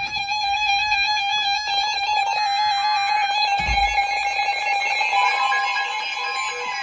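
NOAA weather alert radios sounding their electronic warning alarm for a severe thunderstorm warning: a steady, slightly pulsing beep with a stack of overtones, joined by a second steady tone about five seconds in and by falling pitch glides near the end. A low thump about three and a half seconds in.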